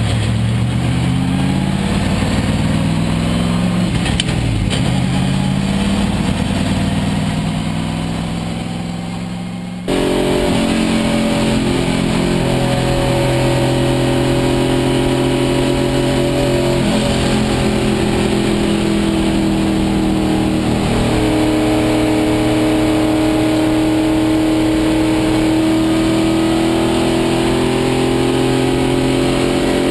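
Race car engine heard from inside the cockpit, accelerating hard through the gears, its pitch climbing and dropping back at each upshift. About ten seconds in the sound changes abruptly to a steady run at high revs, its pitch rising and falling only slowly.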